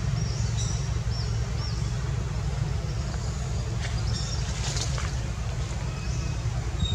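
Steady low outdoor rumble with a few short, faint, high chirps in the first second and a half.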